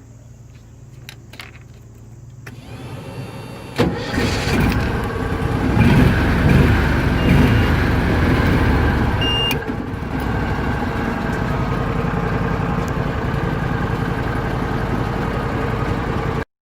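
Argo 8x8 amphibious vehicle's engine starting about four seconds in, running at higher revs for a few seconds and then settling to a steady idle. It is cranked from a BeatIt jump starter used in place of the vehicle's dead battery.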